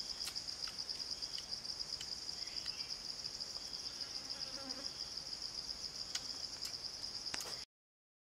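Steady high-pitched insect chorus trilling, with a few faint sharp clicks scattered through it; it cuts off abruptly near the end.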